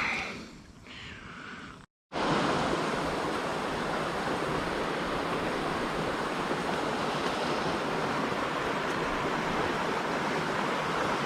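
Steady hiss of heavy rain that starts abruptly about two seconds in and holds unchanged.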